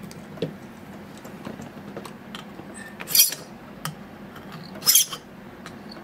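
Two short rasping strokes of a metal file across a key blank held in an impressioning handle, about three and five seconds in, with light metallic clicks and taps around them.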